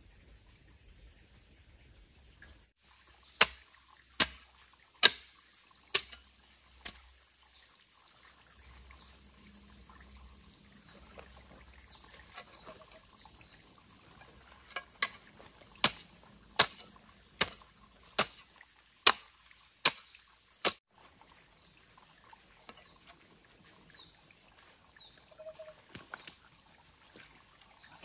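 Two runs of sharp knocks, a little over one a second, over a steady high chirring of insects.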